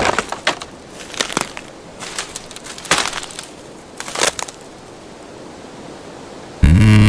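Wood cracking and snapping: about six sharp cracks in the first four and a half seconds, over a faint steady forest background. Near the end a loud, sustained low sound with a falling pitch sets in.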